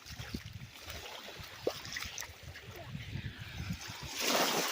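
Bare footsteps sloshing irregularly through shallow lake water at the shoreline, with a louder hiss rising near the end.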